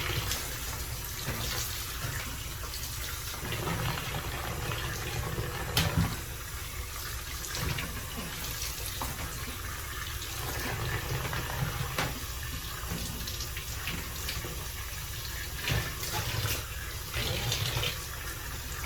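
Water running from a sink tap while plastic car cup-holder inserts are washed under it, with scattered knocks of plastic, the loudest about six seconds in.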